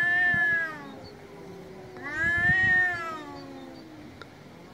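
Cat yowling in an aggressive standoff with another cat: a long drawn-out yowl that rises and falls at the start, a lower held growling moan, then a second long yowl about two seconds in.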